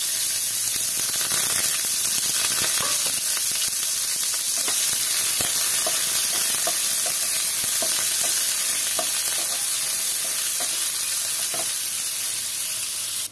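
Chopped onions sizzling in hot oil in a nonstick pan, a steady frying hiss, with scattered light taps and scrapes as a wooden spatula stirs them.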